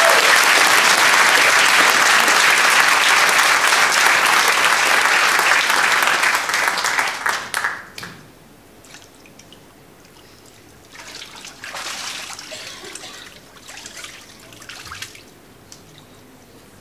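Congregation applauding, a dense patter of many hands that dies away about eight seconds in. A few fainter swells of noise follow.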